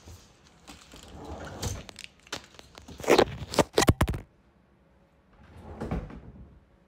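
Handling noise from a phone being moved and set down: rubbing against the microphone and a run of sharp knocks, loudest about three to four seconds in. It then drops suddenly to quiet room tone, with a short soft swell of noise near the end.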